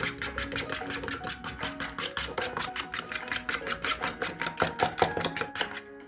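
Knife chopping bitter gourd into small pieces on a cutting board: rapid, even strokes about six or seven a second, stopping just before the end.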